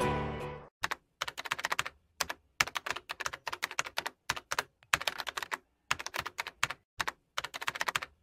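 Computer keyboard typing in short runs of quick keystrokes with brief pauses between, used as a sound effect for text being typed out on screen. The tail of the intro music fades out in the first moment.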